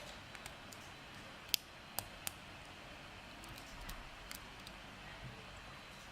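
Small metallic clicks and ticks of a lock pick and tension wrench working the pins in the keyway of a Burg Wächter Magno four-pin padlock, with three sharper clicks between about one and a half and two and a half seconds in.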